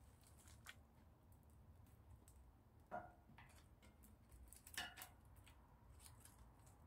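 Small wood fire crackling faintly, with scattered light snaps and two louder pops about three and five seconds in.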